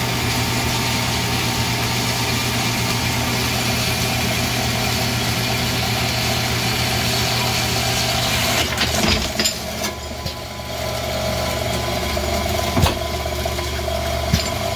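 Tormach AF50 bandsaw running, its blade sawing through thick 6061 aluminum bar over a steady motor hum. About nine seconds in the cutting hiss drops away with a few clicks, and a steadier, higher hum carries on, broken by two short knocks near the end.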